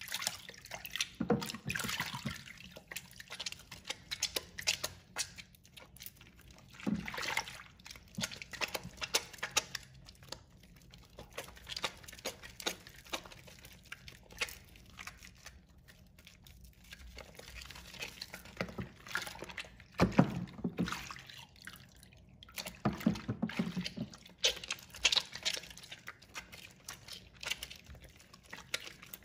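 Hands rubbing and squeezing a soaked, softened bar of pink soap in a plastic basin of water: irregular wet squishing and lathering, with splashes and drips of water, louder in some stretches.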